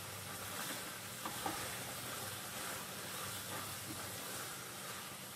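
Grated papaya and jaggery mixture sizzling in a kadhai as a spatula stirs it, with a few soft scrapes against the pan.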